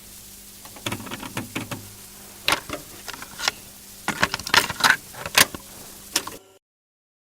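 Irregular sharp clicks and clatter over a steady hiss and a low hum. The sound cuts off about six seconds in.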